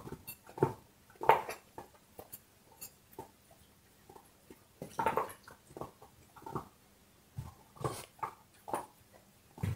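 Large dog gnawing on a big bone: irregular crunches and scrapes of teeth on bone, with a loud crunch about a second in and another near the middle.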